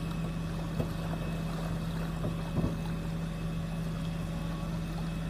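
Tow truck's engine running steadily to power the winch that is pulling a submerged ute out of the water, a constant low hum.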